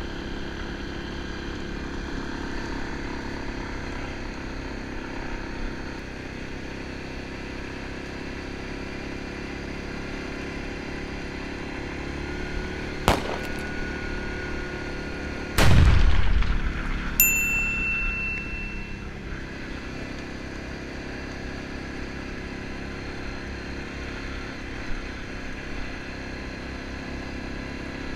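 ATV engine running steadily while riding along a gravel road. About halfway through come a sharp click, then a loud thump a few seconds later that dies away over a second or two, then a brief high ding.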